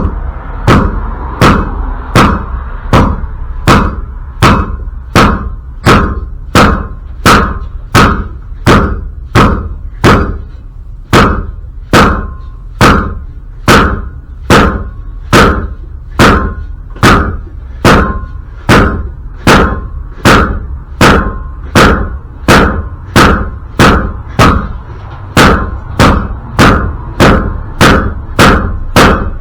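Steady, repeated hammer blows on metal, about one and a half a second, each with a short metallic ring, as a seized rear axle bearing retaining ring on an '84 Toyota pickup is beaten on to break it loose.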